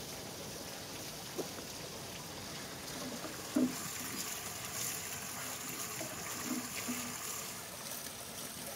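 Steady trickle of running water from a small waterfall. About three and a half seconds in there is a sharp knock, then strips of beef tripe slide off a wooden board and drop into a pot of water with soft splashes.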